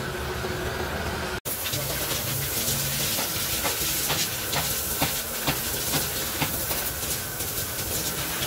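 Gas welding torch flame hissing steadily over a low hum, cut off abruptly about a second and a half in. After that, a steady hiss with many irregular sharp clicks and crackles.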